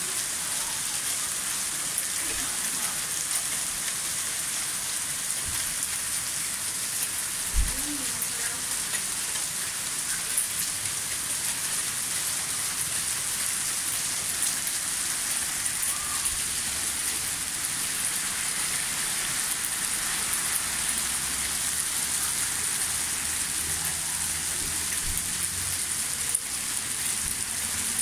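Small hailstones and rain falling steadily on concrete paving slabs and gravel, a dense even hiss of many tiny impacts. A single brief low thump stands out about seven and a half seconds in.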